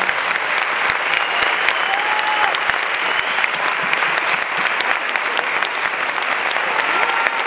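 Theatre audience applauding steadily, a dense sound of many hands clapping.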